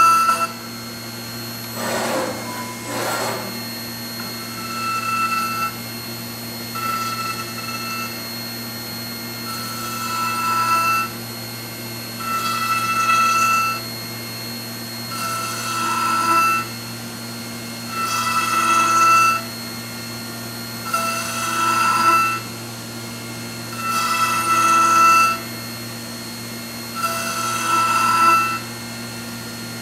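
A 5-axis CNC machining centre's spindle runs steadily while a long slender cutter mills the screw-thread grooves into a block of laminated katsura wood. The cutting noise swells in ringing bursts about a second long every two to three seconds, and two brief sweeping sounds come about two to three seconds in.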